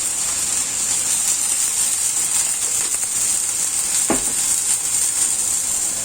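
Shredded beef and spiced tofu sizzling steadily in oil in a wok, a little water just added to the pan; a brief scraping sound about four seconds in.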